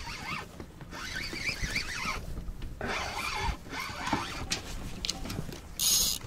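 Wild geese honking in the distance, faint wavering calls coming and going, with a short loud rustling burst of noise near the end.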